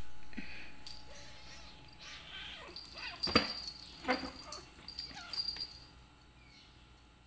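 Two cats play-fighting on a tile floor: sharp knocks and scuffling, a few short high cries, and the kitten's small collar bell jingling through the tussle. A noise is already fading at the start, and the scuffle dies down near the end.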